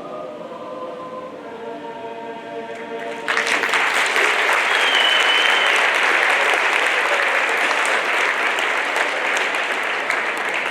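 A chamber choir holds its final chord, which ends about three seconds in; the audience then breaks into loud applause, with a short whistle a couple of seconds after the clapping starts.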